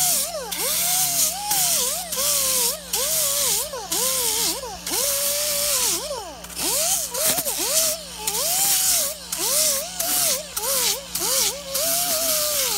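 Air-powered angle grinder with a coarse sanding disc grinding into Styrofoam: a loud hissing whine whose pitch dips and rises again and again as the disc is worked over the foam, with short breaks every second or so.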